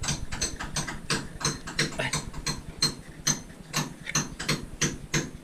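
Rapid, even clicking, about five clicks a second, over a low rumble.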